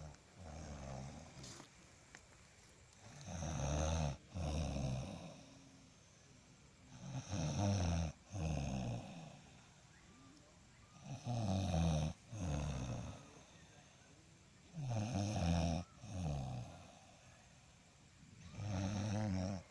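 A person snoring loudly: five long snores about four seconds apart, each with a wavering pitch and a brief catch partway through.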